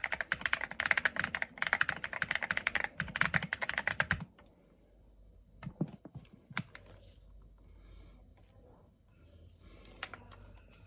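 QK65 mechanical keyboard being typed on quickly, a dense run of keystroke clicks for about four seconds, then the typing stops, leaving only a few separate clicks.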